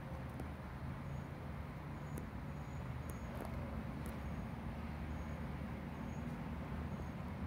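Steady low background rumble, with a few faint ticks about three seconds in.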